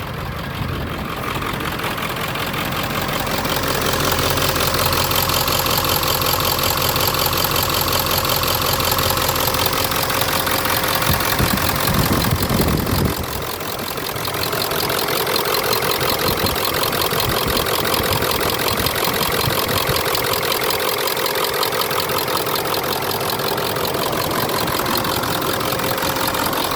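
Ford 7.3 Powerstroke turbo-diesel V8 idling steadily, heard with the hood open. There is a brief low rumble about twelve seconds in.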